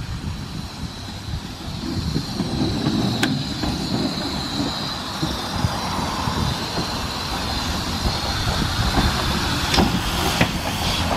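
Bagnall 0-4-0ST saddle-tank steam locomotive moving past at low speed: a low rumble under a thin, steady high tone, with a sharp click about three seconds in and two more near the end.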